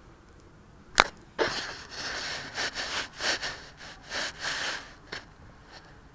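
Handling noise on a small action camera: a sharp click, then a few seconds of scratchy rubbing and scraping bursts as the camera is handled and set in place, with no motor running.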